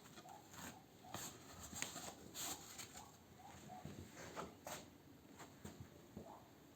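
Faint scattered clicks and rustling, with a faint short chirp-like sound repeating underneath.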